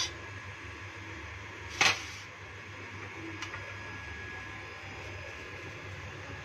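A single sharp clack of kitchenware about two seconds in, as chicken is dished from a pressure cooker with a steel ladle onto a plate, with a faint tick a little later over a steady low hum.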